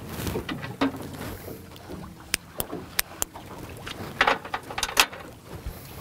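Scattered sharp clicks and taps of fishing tackle being handled while a bigger sinker is tied onto the line, over a steady wash of water around a small boat.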